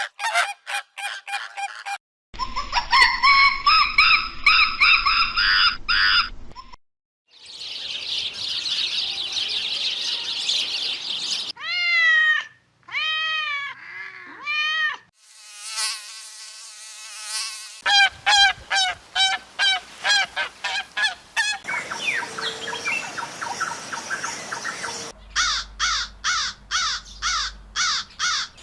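A run of short, abruptly cut clips of different bird calls and songs, some fast repeated chirps and trills, others slower arched calls, changing every two to four seconds.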